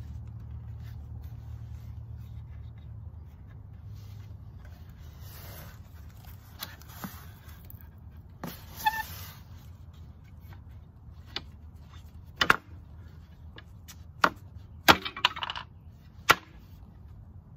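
Solid teak chair parts being handled and worked into alignment: some brief rubbing and scraping of wood on wood, then a series of sharp wooden knocks and clunks in the second half as the frame is turned and pieces are pushed together.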